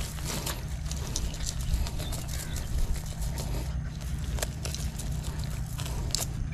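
A crow caws once, faintly, about two and a half seconds in, over a steady low rumble and scattered small clicks and taps.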